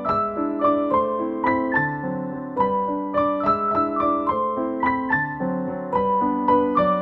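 Background music: a gentle piano melody, one note after another at a steady pace.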